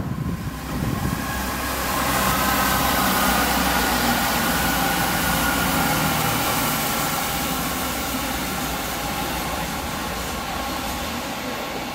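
Chiltern Railways diesel multiple unit passing on the main-line tracks: its diesel engines run under a steady rush of wheel and rail noise. It is loudest from about two seconds in, then slowly fades as it goes away.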